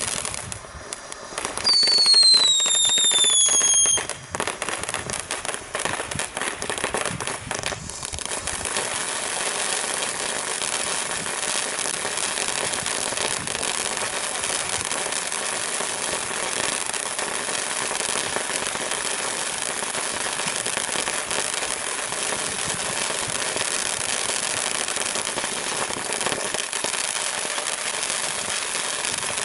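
Top Gun TG4226 Soda Fountain, a 500-gram fountain firework, burning with a steady hiss and dense crackling. A little under two seconds in, a whistle falls in pitch for about two seconds and is the loudest sound here.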